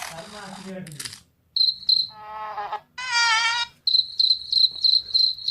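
Recorded cricket chirping played from an animal-sound phone app: evenly repeated high chirps, about three a second, starting about four seconds in. Before them come a hiss and two short pitched calls.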